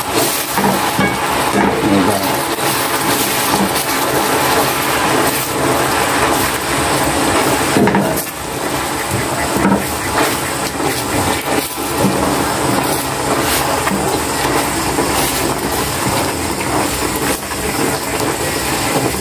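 Caramel sauce of sugar and evaporated milk bubbling and sizzling in a pan as it cooks down, stirred with a wooden spatula that scrapes against the pan now and then.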